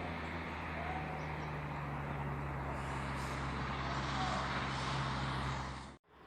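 A running engine: a steady low drone under a wide hiss, which cuts off abruptly near the end.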